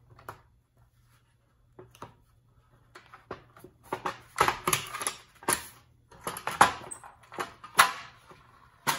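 Hand tool prying and scraping at the steel plate that holds the seal inside a .50 cal ammo can lid: a run of sharp metallic clicks and scrapes that grows louder and closer together from about four seconds in. The plate is held by spot welds.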